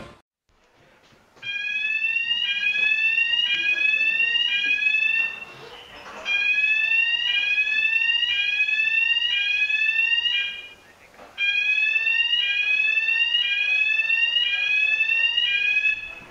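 Ship's electronic alarm sounded from the bridge: three long bursts, each a run of rapid rising whoops, with short breaks between them. Three long sounds is the ship's man-overboard signal.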